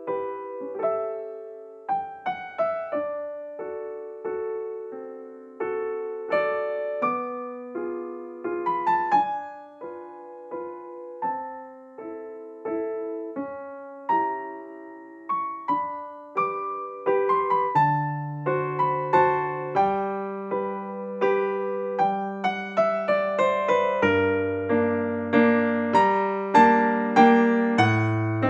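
Background piano music: a gentle melody of single struck notes that fade away, with lower bass notes joining about two-thirds of the way through.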